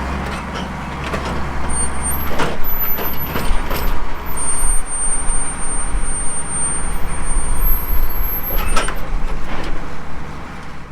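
Heavy vehicle engine running, with repeated clanks and rattles over a steady low rumble.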